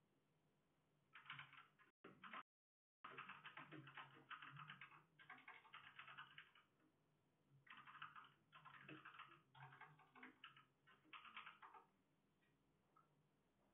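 Faint, rapid typing on a computer keyboard, coming in several bursts of quick clicks with short pauses between them. It starts about a second in and stops a couple of seconds before the end.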